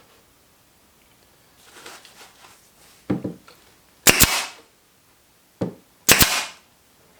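Nail gun firing twice, about two seconds apart, each shot a sharp double crack with a brief hiss after it. Each shot follows a softer knock, and a faint rustle comes earlier.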